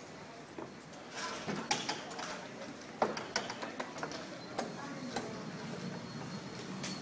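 Clicks, rattles and knocks of a wheeled monitor stand being pushed through swinging doors and along a hard floor, with a sharp knock about three seconds in.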